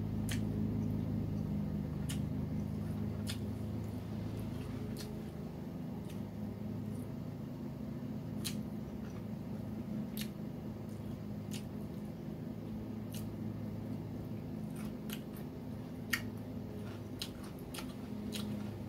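Eating sounds: chewing and handling crisp fried takeout food, with scattered sharp clicks and crunches every second or so, over a steady low hum.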